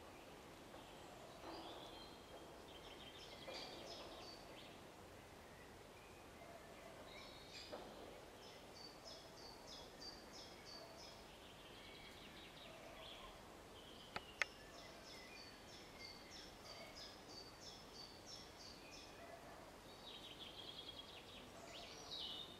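Faint songbird singing: runs of short, high notes that slide downward, repeated in long series, with trills between, over a quiet background hiss. Two sharp clicks about fourteen seconds in.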